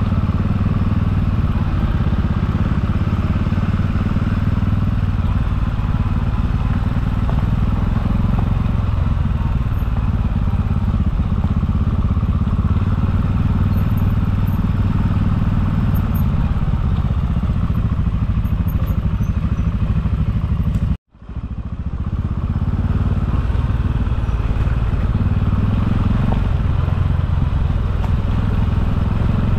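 Motorcycles running along the road, heard as a steady low rumble from a GoPro on a moving bike. The sound drops out for an instant about two-thirds of the way through.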